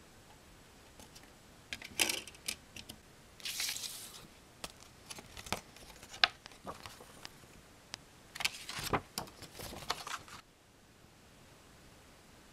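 Handling a CD single's jewel case and folded paper inlay: a series of sharp plastic clicks and taps mixed with bursts of paper rustling as the booklet is opened out and flattened.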